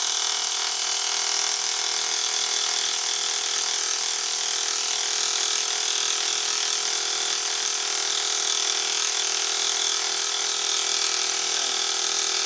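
Milling machine spindle running steadily while an insert-tipped dovetail cutter takes a 20 thou cut along a cast iron cross slide: a steady machining whir with a high hiss.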